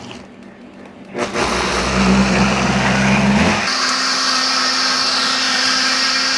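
Countertop blender starting up about a second in and blending kimchi and ketchup into a thick purée. The motor runs low and laboured at first, then about halfway through shifts to a higher, steady whine.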